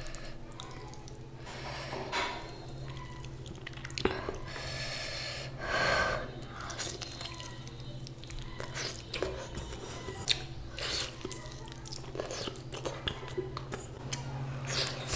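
A person chewing and eating mouthfuls of goat mutton, with irregular wet mouth sounds and small clicks, over a steady low hum.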